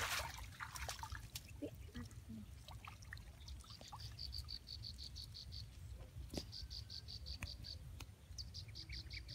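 Water splashing as a boy steps up out of a shallow channel, then an insect chirping high and fast in three runs of one to two seconds, about five pulses a second.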